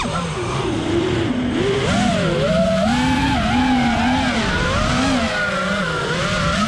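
FPV racing quadcopter's motors and propellers whining, the pitch swooping up and down continually with the throttle; a sharp drop in pitch right at the start as the throttle is cut.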